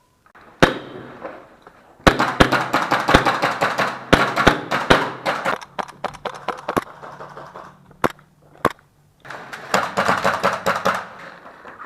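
Airsoft gas blowback guns firing: a single crack, then long runs of rapid sharp shots, a couple of lone shots, and another rapid run near the end.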